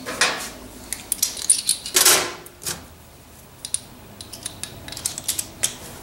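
Light metallic clinks, taps and scrapes from a sheet-metal furnace burner plate and a screwdriver being handled while a small screw plate is removed. There are two louder scrapes, one just after the start and one about two seconds in.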